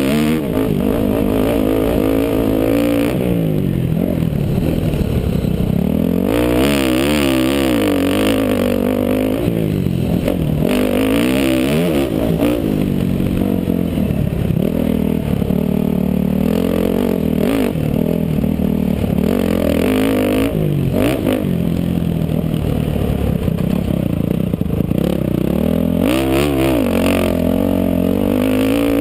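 Dirt bike engine heard close from a helmet camera while riding a motocross track, revving up and dropping back over and over as the rider works the throttle and shifts gears.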